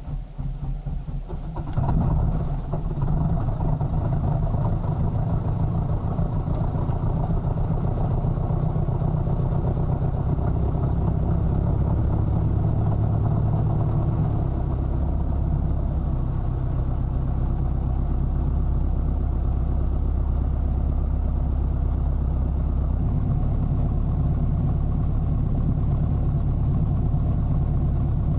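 Pitts biplane's piston engine and propeller running, opening up sharply about two seconds in and then holding at high power, with a few shifts in tone later on.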